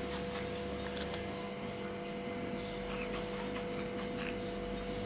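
Steady low hum of room tone with a faint hiss and a few faint ticks; no distinct sound from the flour.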